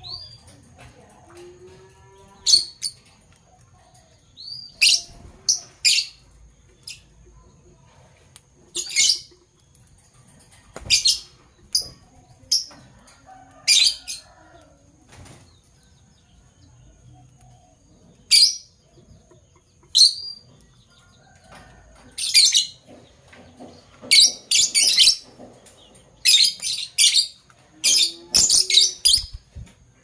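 Fischer's lovebirds giving short, sharp, shrill chirps, scattered at first and coming thick and fast over the last third, mixed with wing flaps as one bird flutters about the cage.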